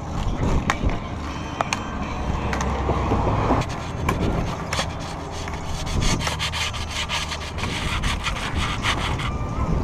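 Rasping scrape of Grizzly grip tape being rubbed along the edge of a skateboard deck with a tool, in quick repeated strokes, scoring the fresh tape along the deck's outline for trimming.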